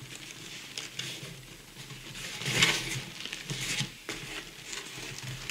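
Cardboard box flaps being pulled open and folded back by hand: scraping, crinkling rustles. The loudest rustle comes about two and a half seconds in, with another shortly before four seconds.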